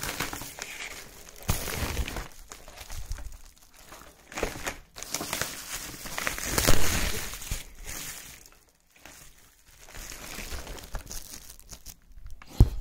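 Bubble wrap and wrapping paper crinkling and rustling in irregular bursts as a parcel is unwrapped by hand, with a short bump near the end.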